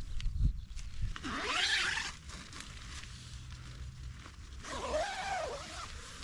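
Webbing tension straps on a trekking-pole tent being pulled tight through their buckles: two zip-like rasps with a rising and falling pitch, one about a second in and one near the end.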